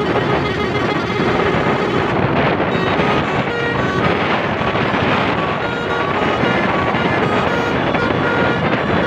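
Heavy wind buffeting the microphone and road noise from a moving vehicle, with a basuri telolet multi-tone musical horn playing short, stepping notes underneath.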